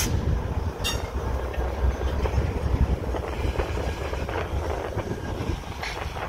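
Freight train rolling past with a diesel locomotive in the consist: a steady low rumble from the engine and the wheels on the rails, with scattered clicks of wheels over the track.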